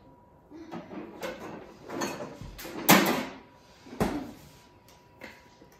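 Kitchen handling sounds: a few knocks and clunks like a door or cupboard being opened and shut. The loudest clunk comes about three seconds in, and a sharp knock follows about a second later.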